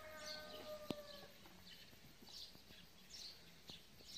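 A faint rooster crow: one long, level call that ends about a second in. After it, a few faint high bird chirps over a quiet outdoor background.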